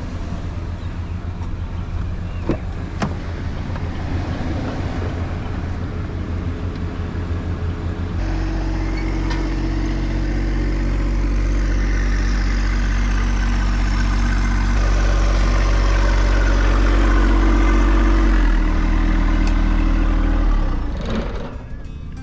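A vehicle engine running steadily at a constant pitch. It gets louder about a third of the way in, holds, then drops back near the end.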